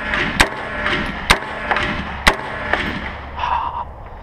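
Three gunshots about a second apart, a shooter firing a rifle or shotgun on a stage.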